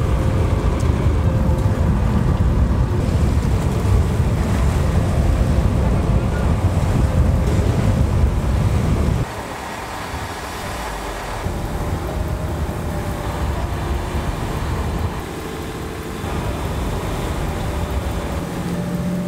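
A patrol boat's engine running with heavy wind on the microphone, a dense low rumble that drops off suddenly about nine seconds in to a quieter outdoor background that shifts at later cuts.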